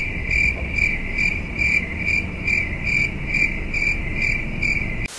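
Crickets-chirping sound effect: a steady, even high chirp repeating about two and a half times a second, then cutting off suddenly near the end. It is the stock "crickets" gag for an awkward silence.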